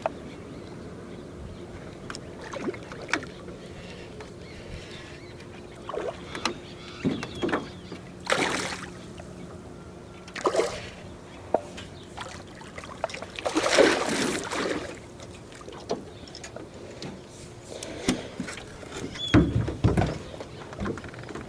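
Jon boat out on the water: a faint steady hum, with a few short splashes and knocks now and then, the biggest near the middle and near the end.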